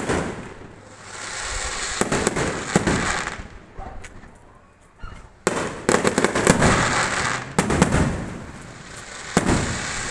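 Fireworks going off: a sharp bang at the very start, more bangs about two seconds in, and a dense run of bangs and crackles from about five and a half to seven and a half seconds in. Another bang comes near the end.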